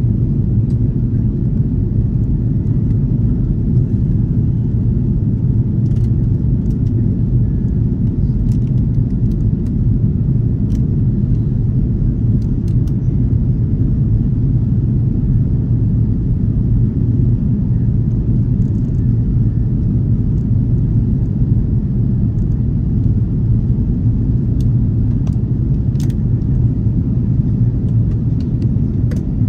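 Steady low drone inside the cabin of an Airbus A330-300 airliner: the engines and airflow, even and unchanging, with a few faint ticks.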